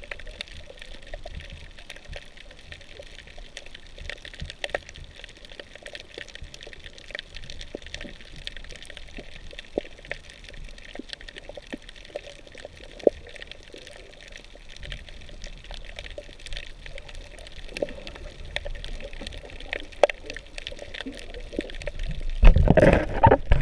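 Underwater ambience on a coral reef, heard through a submerged camera: a steady hiss with many scattered sharp clicks and crackles. Near the end a louder, rough burst of water noise comes in.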